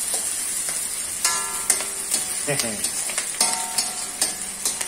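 Greens sizzling in hot oil in a stainless steel kadai while a metal spoon stirs them, scraping and clicking against the pan.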